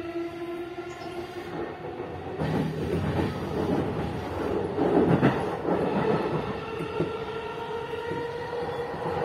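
E233 series electric train running at speed: its traction motors give a whine that rises slowly in pitch. From about two and a half seconds in, a louder stretch of rumbling with wheels clattering over the rails lasts a few seconds.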